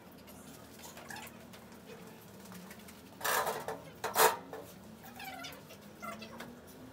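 Slate pool table bed panel being lowered onto the table frame and shifted into place: two loud scraping knocks about three and four seconds in, with faint squeaks scattered around them.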